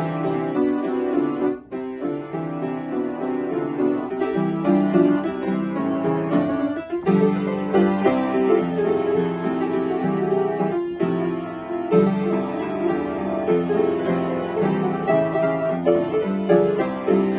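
Upright piano being played, a lively passage of many quick notes, with a brief break about one and a half seconds in.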